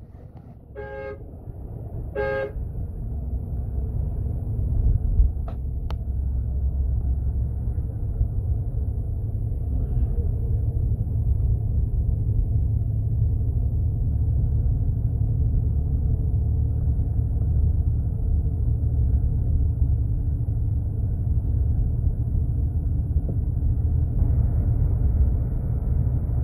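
Low, steady rumble of a moving road vehicle heard from on board, growing louder over the first few seconds. A vehicle horn toots briefly twice, about one second and just over two seconds in.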